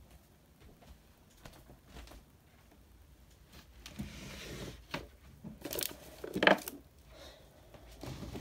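Rummaging among things on a desk: light rustling, crinkling and clinks, with a louder clatter of handling about six and a half seconds in.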